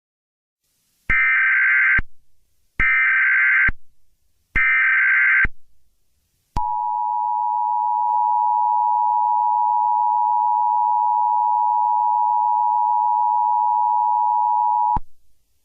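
Emergency Alert System tones: three short bursts of SAME header data, each just under a second, followed by the steady two-tone EAS attention signal held for about eight seconds before cutting off sharply. Together they announce the start of a new emergency alert.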